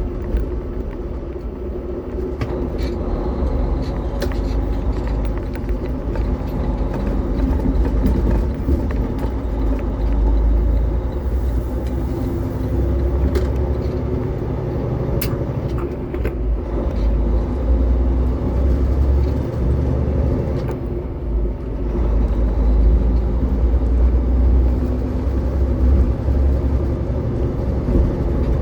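Freightliner semi truck's diesel engine running steadily on the road, with deep road rumble and occasional short rattles and clicks.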